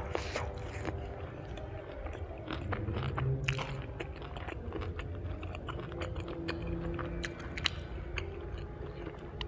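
Close-up chewing of crispy fried kimbap, with many sharp crunchy crackles as it is bitten and chewed.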